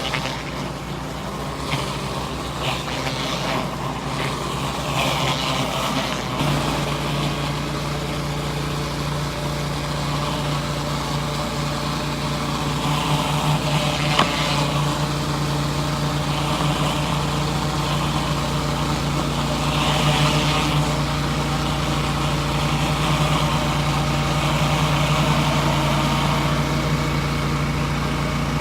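Pressure washer engine running steadily under load while the surface cleaner sprays concrete, with a constant hum under a hiss of water. The engine note shifts and grows stronger about six seconds in.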